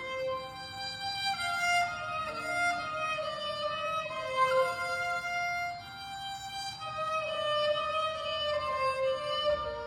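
Violin playing a slow melody of long, held notes.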